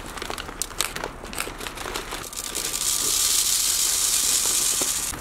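Plastic sack crinkling as it is tipped over a plastic-pipe pet feeder, then, about two seconds in, dry pet food starts pouring down the pipe with a steady hiss.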